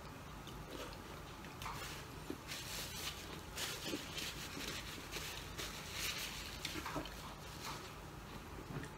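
Paper napkin rustling and crumpling as greasy hands are wiped with it, a run of crackly rustles lasting several seconds.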